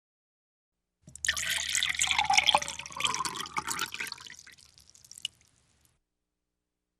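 Water splashing and trickling for about five seconds, then tapering off, with a small click near the end.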